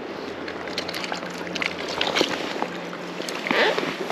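Creek water running and sloshing, with scattered small splashes and a brief louder rush of water about three and a half seconds in.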